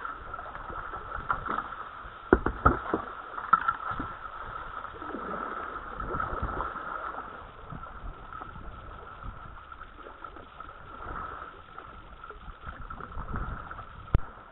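A kayak being paddled down a muddy river: paddle splashes and water noise, with a cluster of sharp knocks of the paddle about two seconds in and one sharp knock near the end. A steady high-pitched drone runs underneath.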